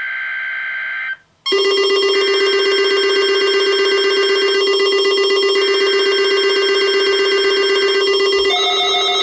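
NOAA Weather Radio weekly test alert signals: the tail of a SAME digital header burst, a warbling data tone that stops about a second in. After a short gap comes a loud, steady alarm tone with a fast buzzy texture, the weather radio's alert sounding for the test.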